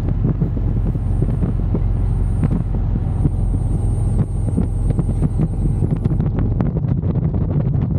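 Motorcycle engine running at road speed, with wind rushing over the microphone and a scatter of short pops or buffets.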